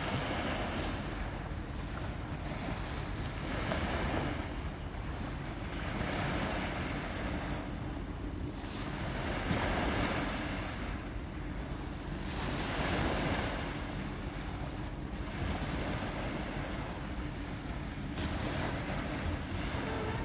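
Small waves washing in at the water's edge, the rush swelling and fading every few seconds, with wind rumbling on the microphone underneath.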